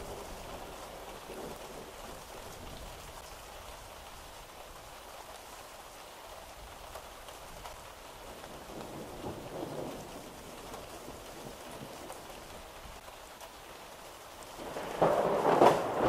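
Steady rain falling, with a loud clap of thunder breaking in near the end.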